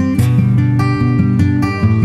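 Background music: strummed acoustic guitar with chords changing at a steady rate.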